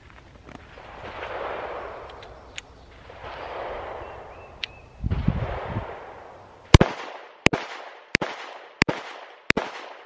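Five shots from a Glock 19 Gen 4 9mm pistol, evenly spaced about 0.7 s apart and starting about seven seconds in, each with a short echo. They are fired at a steady counted cadence, one trigger pull per count, for the slow first stage of a trigger-control warm-up drill.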